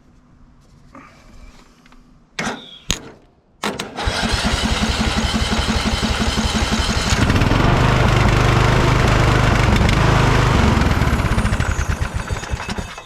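A riding mower's small gasoline engine starting up: after a few clicks it turns over and fires about four seconds in, runs harder and louder from about seven seconds, then dies away near the end. It is the first start after the mower's electrical fault was worked around and spark restored.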